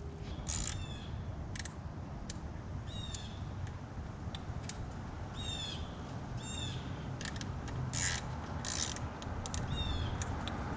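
Blow-off valve hoses and piping being worked into place by hand: irregular light clicks and knocks of parts being handled, with several short, high squeaks falling in pitch as rubber hose rubs on its fittings.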